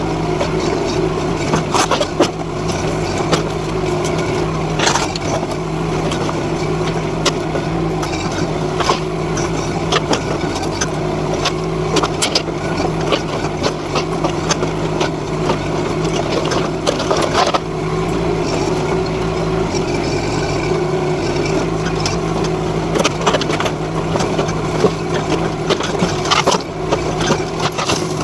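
NT18K mini excavator's engine running steadily under working load while it pulls down an old wooden shed, with scattered cracks and knocks of timber and sheet metal breaking and shifting.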